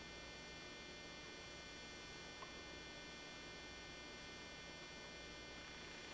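Faint, steady electrical hum with a thin high whine, unchanging throughout; one faint tick about two and a half seconds in.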